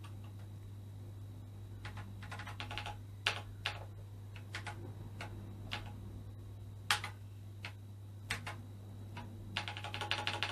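Keys being pressed on a BBC Master 128 keyboard: irregular clicks, some single and some in quick runs, the busiest run near the end. A steady low hum runs underneath.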